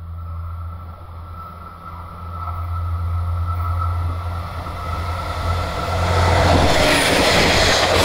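The etSETOra tourist train, a two-car diesel railcar, approaches and passes close by, its engine hum growing louder and a rush of wheel and rail noise building over the last two seconds as it goes by. A level crossing warning signal rings steadily throughout.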